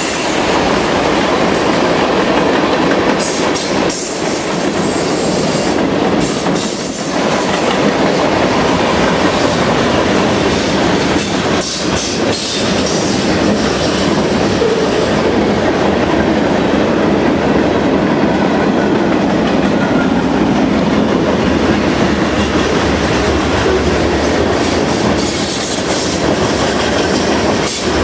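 A coasting freight train's covered hopper cars rolling past close by: a loud, steady rumble of steel wheels on rail, with a clack now and then as wheels cross rail joints.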